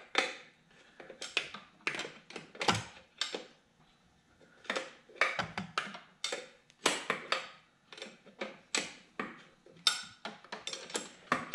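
Metal-on-metal clicks and clinks of two wrenches, a 19 mm and a 5/8 in, working a rigid fuel line fitting loose at a fuel pressure regulator: a string of short, sharp taps at irregular spacing, about two a second, as the wrenches are turned and reset on the fitting.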